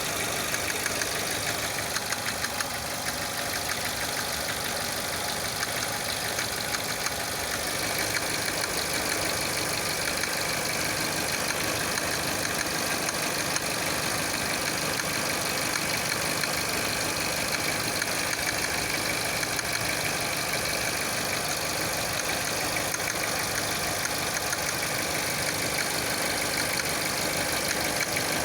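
Renault 1.6 engine running with a steady, rapid knocking from the timing-belt tensioner pulley. The pulley's spring-loaded tensioner has weakened and lets it jerk against the belt; replacing the pulley cured it.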